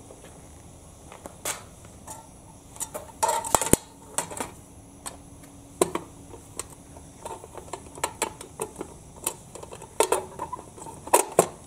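Irregular clinks, knocks and rattles of a metal mess tin and its wire handle being handled, set down on a wooden table and laid on its side. The loudest clatter comes about three seconds in.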